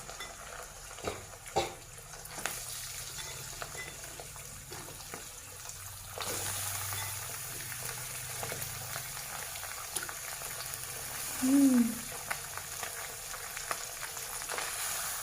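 Chicken pieces frying in hot oil with onions in a pan: a steady sizzle, with a couple of sharp clicks of a utensil against the pan about a second in.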